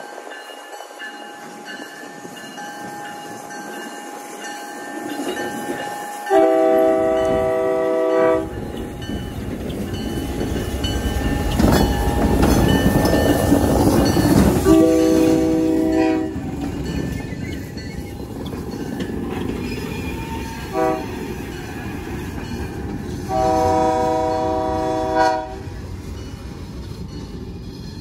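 Florida Central Railroad EMD GP9RM diesel locomotive 7063 sounding its multi-chime horn in the grade-crossing pattern: long, long, short, long. Under the horn, the engine and the wheels on the rails rumble, louder about halfway through as the locomotive and its covered hopper pass, then easing as they move away.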